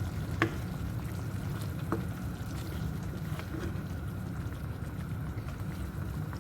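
Butter chicken in cream sauce cooking in a pan, a steady bubbling and sizzling, with two brief clinks about half a second and two seconds in.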